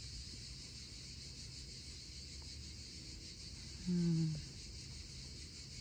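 Steady outdoor chorus of insects, a continuous high shimmering drone. About four seconds in, a brief low hum-like voice sound.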